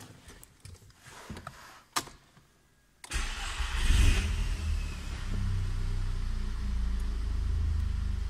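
A few light clicks, then about three seconds in a Golf 6 GTI's 211 PS EA888 Gen 2 2.0 TSI four-cylinder turbo engine starts. It flares up on catching, then settles into a steady idle.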